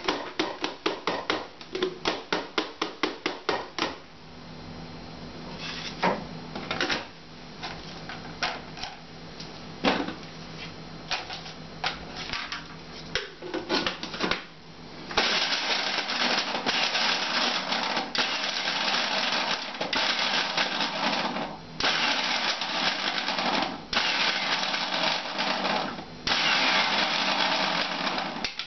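Rapid clicks and knocks of food and parts being handled at a kitchen juicer. About halfway through, the juicer's motor starts and runs loudly while it chops carrot and broccoli, stopping briefly three times before running again.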